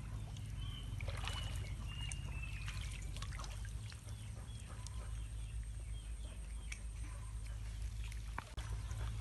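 Water splashing and trickling as a fishing net is gathered and lifted out of shallow, muddy water, with many small scattered splashes and drips.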